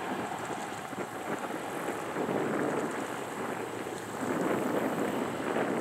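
Distant freight train rolling across a steel truss bridge: a steady rumble of wheels on rails that swells and eases, growing louder about two seconds in and again near the end.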